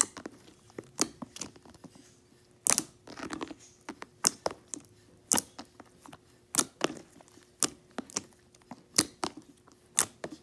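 Slime being squeezed and stretched by hand, giving sharp, irregular pops and clicks about one or two a second.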